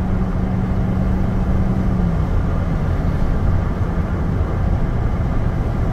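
Steady road noise inside a pickup truck's cab at highway speed: tyre and engine noise, with a low steady hum that stops about two seconds in.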